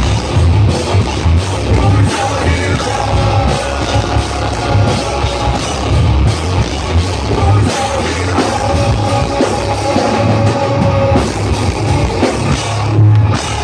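Live rock band playing loud: electric guitar, drum kit and singing, heard from right by the stage.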